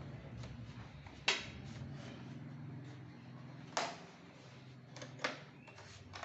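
Plastic clips of an all-in-one PC's back cover snapping loose one by one as the cover is pried off from its edge: two sharp loud clicks, then a few fainter ones near the end.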